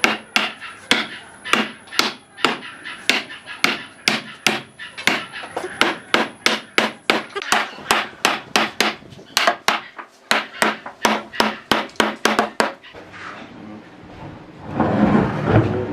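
Hammer blows on solid wood, about two to three a second, driving the round log top rail of a door frame down onto its uprights. The blows stop about 13 seconds in, and near the end there is a louder stretch of wood scraping and knocking as the frame is laid flat on the workbench.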